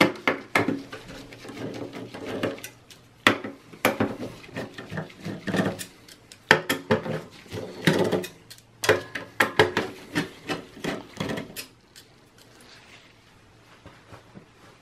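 Hand screwdriver backing out the hard-drive screws from a desktop PC's steel drive cage: a string of irregular metallic clicks, clinks and scrapes, going much quieter for the last few seconds.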